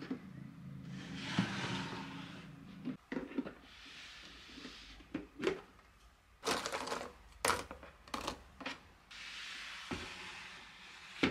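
Handling sounds from a white plastic storage case packed with watercolour paint tubes, as a hand rummages through it: a string of light clicks and clatters of tubes knocking together, between longer rustles.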